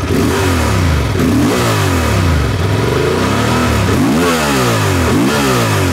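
Honda XL750 Transalp's parallel-twin engine revved repeatedly at a standstill through its stock twin-outlet silencer. There are about five or six quick throttle blips, each rising in pitch and falling back toward idle.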